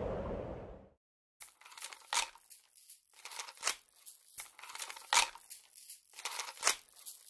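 A sheet of paper rustling and crinkling in someone's hands, in short irregular crackles. Before that, a steady rushing noise fades out in the first second.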